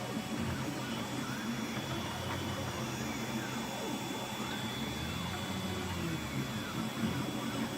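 Anet A8 3D printer printing, its stepper motors whining in repeated rising and falling pitch sweeps as the print head speeds up and slows down, over a steady high tone. The print is about 99% done.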